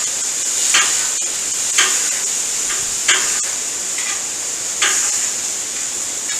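Knife chopping grilled chicken on a hot cooking surface, a sharp knock about once a second over a steady sizzle.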